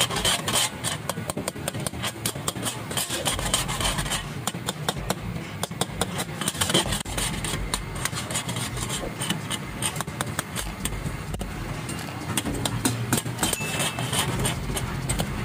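A metal ladle scraping and clanking against a steel karahi wok in rapid, irregular strokes as chicken and tomatoes in gravy are stirred and tossed, over a hiss of sizzling and a steady low rumble from the gas burners.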